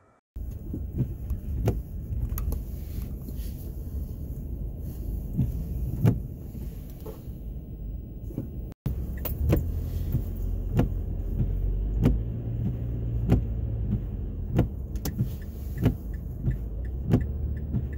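Inside a parked car: a steady low rumble with scattered sharp ticks and taps. The sound breaks off briefly about nine seconds in and then carries on.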